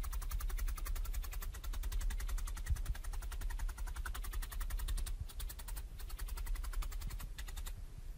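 Felting needle poking wool rapidly into a foam mat, sped up: a fast, even run of sharp clicks over a low rumble, stopping shortly before the end.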